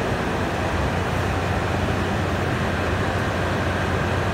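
Ex-JR KiHa 183 series diesel railcar standing at the platform with its diesel engines idling: a steady low hum with an even mechanical noise over it.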